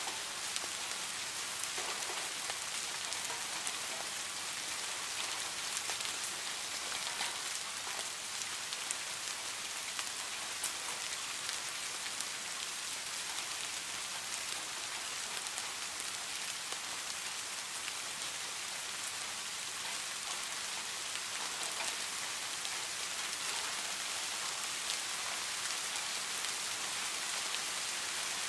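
Steady rain falling, an even hiss with scattered faint ticks of individual drops.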